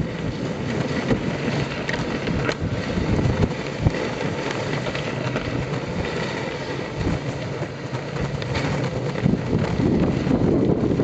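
Wooden dog sled sliding over packed snow, a steady rumbling hiss with wind buffeting the microphone. A couple of short knocks come a few seconds in.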